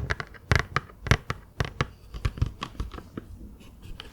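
Close-miked wet mouth sounds: irregular sharp clicks and smacks, several a second, thinning out a little after about three seconds.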